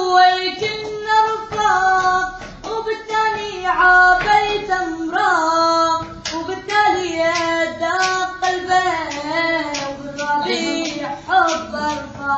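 A high voice singing an Arabic song in a gliding, ornamented melody over a beat of sharp claps.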